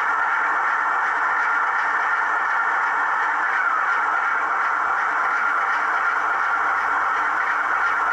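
Sound decoder of an OO gauge model 'Peak' diesel locomotive playing a steady diesel engine idle through the model's small speaker, with the locomotive standing still.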